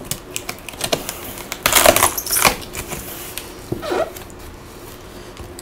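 Cardboard laptop box being pried and lifted open by hand: scraping and rustling of the cardboard flap with scattered clicks, and a louder rustling stretch about two seconds in.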